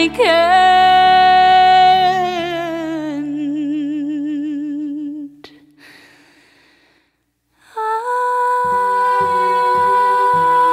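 Background music: a voice holds a long final note with vibrato as a song ends, fading out about five seconds in. After a short silence, a new piece begins with long sustained string notes over a regular low pulse.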